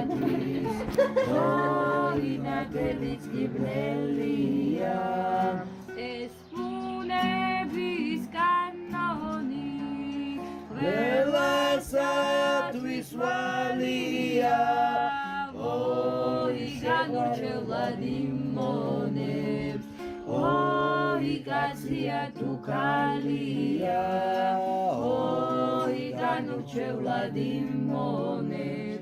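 A group of voices singing a Georgian folk song unaccompanied, with low voices holding steady notes under a moving melody line.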